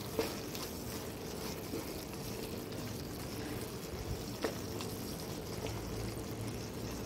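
A wooden spatula stirring a thick brinjal and peanut curry in a nonstick pan, with a few light clicks of the spatula against the pan over a faint, steady simmering hiss.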